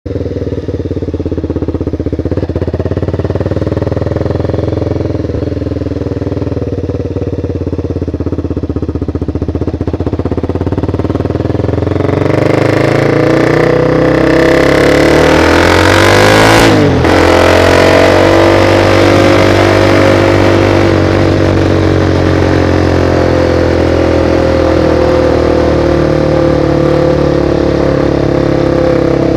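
Motorcycle engine heard from an onboard camera, with wind rush on the microphone. It runs steadily at first, then from about twelve seconds in it accelerates with rising pitch and rising wind noise. About seventeen seconds in there is a brief break and drop in pitch, a gear change, after which it cruises with the pitch slowly easing off.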